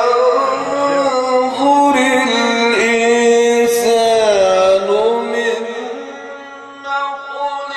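A man singing long, held notes that bend and waver, in a Middle Eastern style. The voice eases off briefly about two-thirds of the way through, then comes back.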